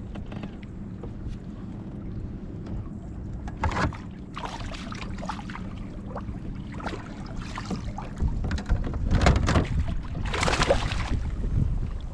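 Wind rumbling on the microphone while water slaps and splashes against a kayak hull, with a few louder splashes in the second half.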